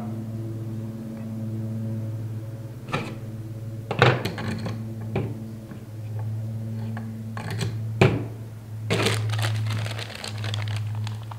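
A steel chainsaw guide bar handled and set onto a pole-saw head on a workbench: a few sharp knocks and clicks. About three quarters of the way in, plastic packaging crinkles. A steady low hum runs underneath.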